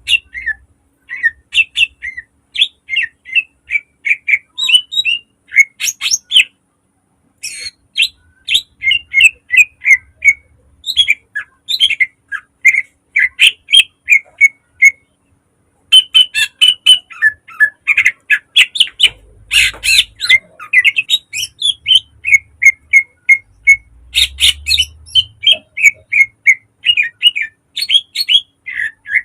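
Green leafbird (cucak ijo) singing fast runs of sharp, loud chirps and trills, broken by short pauses about seven and fifteen seconds in.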